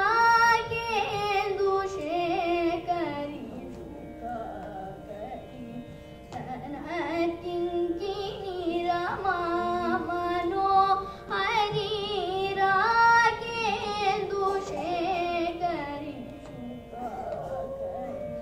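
A girl singing a Carnatic krithi solo, in phrases full of sliding, ornamented turns of pitch, over a steady drone. The singing thins out around four to seven seconds in and again near the end while the drone carries on.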